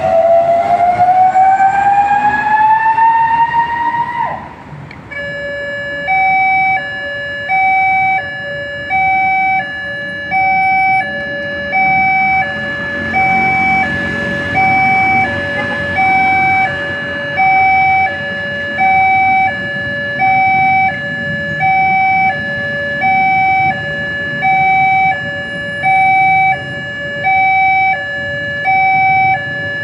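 Railway level crossing warning siren: a rising wail that cuts off about four seconds in, then a two-tone electronic alarm steadily alternating a higher and a lower tone, about one pair every second and a half, sounding while the crossing barriers come down.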